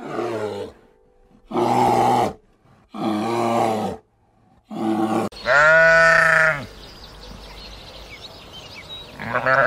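An animal calling repeatedly: about six short, pitched calls of under a second each. The longest and loudest comes a little past the middle and rises and then falls in pitch.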